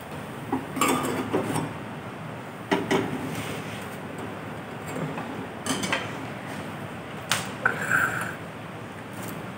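Metal tongs and a wire grill basket clicking and knocking against a gas stove's burner grate while a green chilli that dropped through is fished out, a few sharp clicks spread out over a steady hiss from the lit burner. A short squeak near the end.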